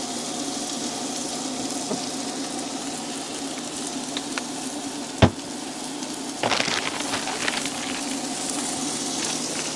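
Hamburger patties frying in a pan on a two-burner camp stove, a steady sizzle. A single sharp click about five seconds in, and a short crackly sputter about a second after it.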